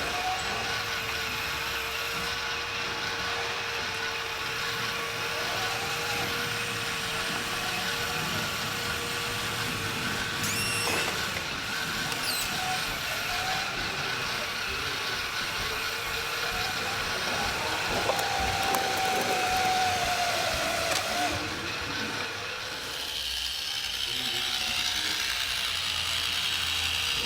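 Small electric motors and gear drives of radio-controlled model trucks and construction machines whining as they work. A steady hum runs under short whines that rise and fall in pitch, with a longer whine a little past halfway.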